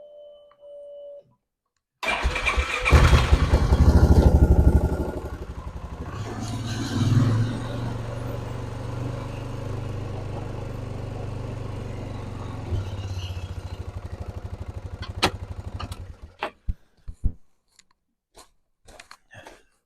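Compact tractor engine, most likely the Mahindra eMax 20 HST's, starting about two seconds in. It runs loud for a few seconds, settles to a steady idle, and stops around sixteen seconds in. A few scattered clicks follow.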